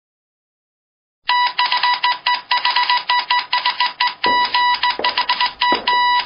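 Silence, then a little over a second in an alarm-like electric ringing starts: a steady-pitched tone pulsing rapidly, several pulses a second.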